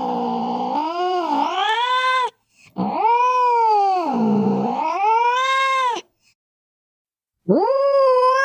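Cat yowling in long, drawn-out meows of about three seconds each, the pitch dipping low in the middle of each call and rising again. One call ends about two seconds in, a second follows straight after, and a third begins near the end after a pause of about a second and a half.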